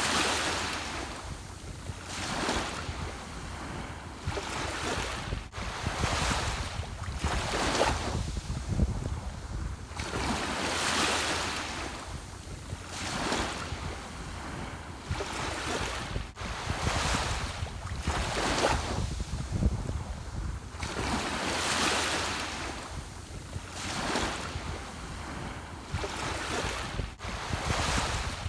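Ocean waves washing in, the surf swelling and fading every two to three seconds over a steady low wind rumble.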